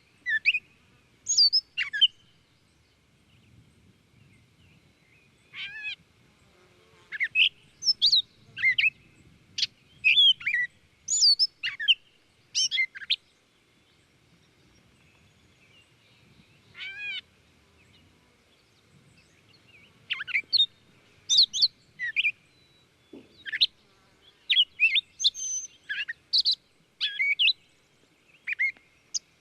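Small birds chirping: clusters of short, quick sweeping high notes, with pauses of a few seconds between the clusters.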